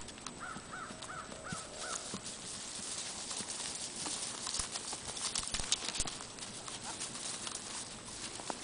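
A horse trotting on dry grass, its hoofbeats coming as irregular thuds and clicks that are loudest in the middle. In the first two seconds a bird calls five times in short, quick arched notes.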